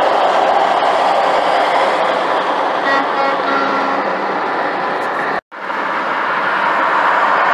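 Steady rush of road and wind noise from a car travelling at highway speed beside tractor-trailers. A faint pitched tone sounds briefly around three seconds in. The sound cuts out for an instant about five and a half seconds in.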